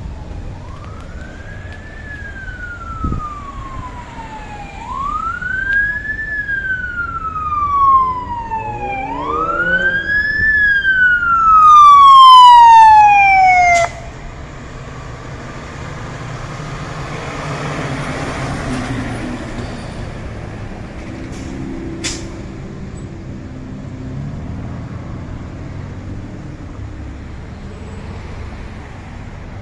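Fire engine's wail siren sweeping up and down about every four seconds, growing louder as the truck nears, then cut off abruptly about halfway through. After that, steady traffic noise with a vehicle passing.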